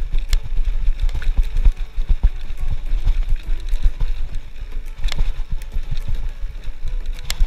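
Specialized Stumpjumper FSR full-suspension mountain bike riding fast down a dirt singletrack. Wind on the camera microphone makes a constant low rumble. The tyres on the dirt and the bike's frame rattle and click often, with sharper knocks about five seconds in and near the end.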